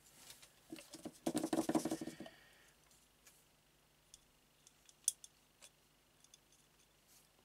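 Small handling noises of a plastic scale model kit and its cement bottle: a scraping, clicking rattle for about a second, starting about a second in, then a few faint light ticks as the cement brush works over the plastic engine parts.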